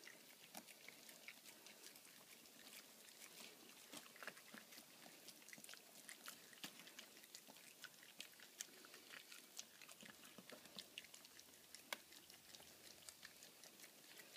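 A mother dog and her 4.5-week-old puppies eating from a shared bowl: faint, irregular chewing and crunching, a steady scatter of small clicks.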